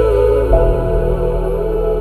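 Calm background music of long sustained chords over a steady low bass, the chord changing about half a second in.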